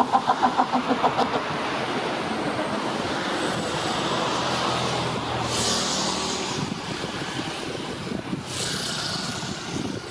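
Steady rushing engine noise with a rapid fluttering pulse in the first second. Two short gusts of wind hiss on the microphone come later.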